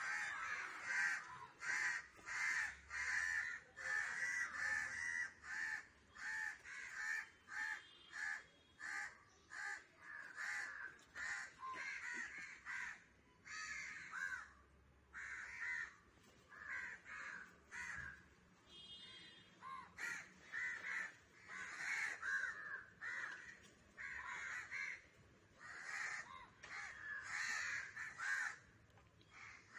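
Crow cawing over and over, a long run of short, harsh caws at about two a second, typical of a crow's alarm calling while under attack by a cat.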